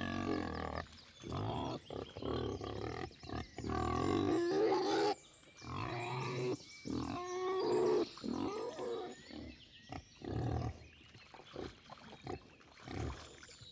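Sardinian wild boars grunting and calling in short, irregular bursts, some of the calls higher-pitched and drawn out.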